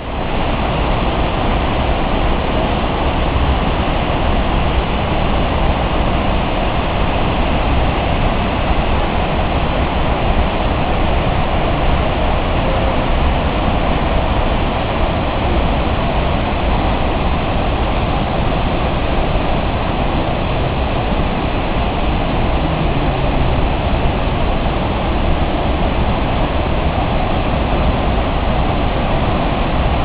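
Misol-Ha waterfall pouring into its plunge pool: a steady, unbroken rush of falling water.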